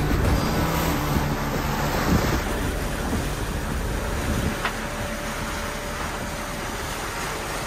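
Steady wind and sea noise aboard a sailing catamaran under way, with wind rumbling on the microphone.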